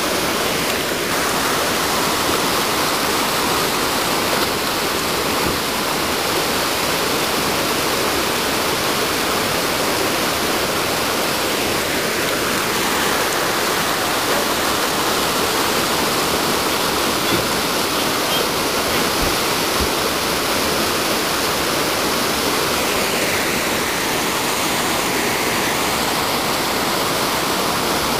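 Whitewater rapids rushing steadily over rocks, a loud even roar of river water that does not let up.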